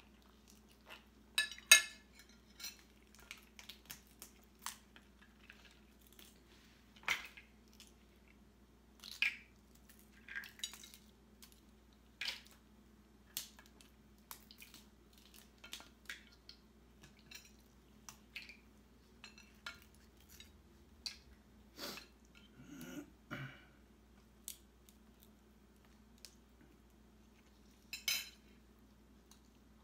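Snow crab legs being cracked and picked apart by hand: scattered sharp cracks and clicks with the clatter of shells and utensils on plates and plastic takeout trays, loudest about two seconds in and again near the end.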